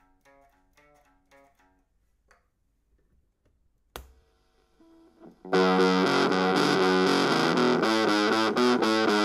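A few faint plucked guitar notes, then a single sharp click about four seconds in as the radio's control is worked. From about five and a half seconds in, guitar plays loud and distorted through a Bush transistor radio converted into an amplifier, in a rhythmic pattern of notes.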